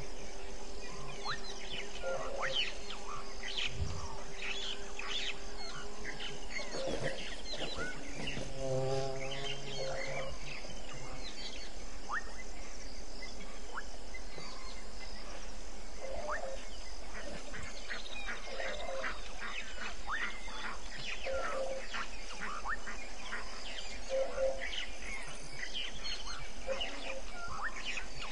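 Dusk chorus of wild animal calls: many short chirps throughout and short low calls every few seconds, with one longer honking call about nine seconds in.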